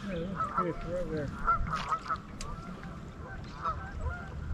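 A flock of geese honking, many short calls overlapping, several a second.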